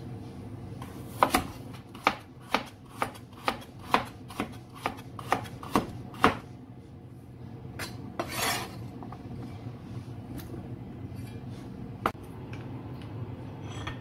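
Knife slicing a carrot on a cutting board: sharp chopping knocks about two a second for about five seconds, then a few scattered knocks.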